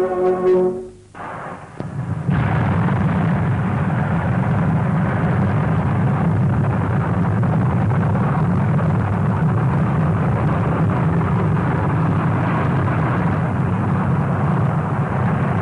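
Steady roar of a V-2 rocket engine in flight, an even rumbling noise that starts about two seconds in, after brass music ends.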